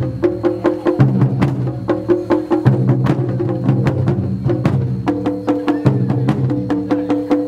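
A group of drummers playing taiko-style barrel drums in fast, dense strikes. Underneath are sustained pitched notes that change about once a second.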